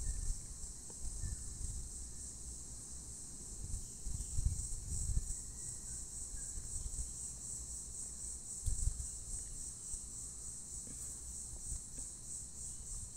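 A steady, high-pitched, slightly pulsing insect chorus of crickets shrilling, with a few low rumbles on the microphone about four and nine seconds in.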